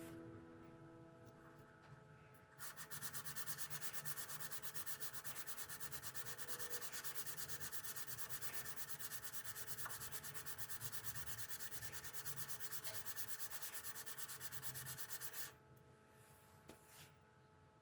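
Rapid, even back-and-forth rubbing on wood with a hand tool, starting a couple of seconds in and running steadily for about thirteen seconds before stopping suddenly.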